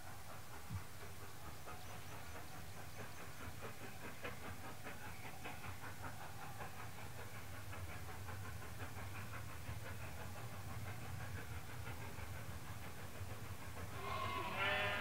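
Steam train running at a distance: a steady low rumble with a run of faint repeating beats. A sheep bleats near the end.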